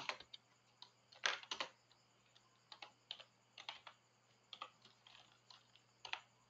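Typing on a computer keyboard: faint, uneven key clicks, with a few louder strokes just over a second in.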